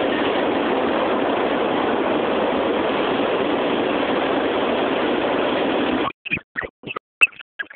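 Steady rolling noise of a CSX mixed freight train's cars passing close by. It cuts off suddenly about six seconds in, followed by scattered sharp clicks.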